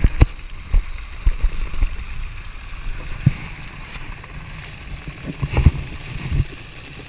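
Splashing from a mass of fish thrashing in a net hauled up to the surface, a rain-like patter, with irregular low thumps and knocks.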